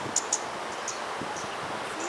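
Steady outdoor ambience of wind and rustling leaves, with a few short, high chirps in the first half.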